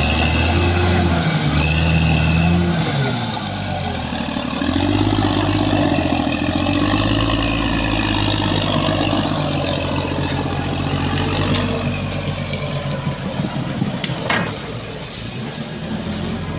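Heavy diesel engine of a bulldozer working under load. Its pitch rises and falls in the first few seconds, then holds steady, with a few sharp knocks near the end.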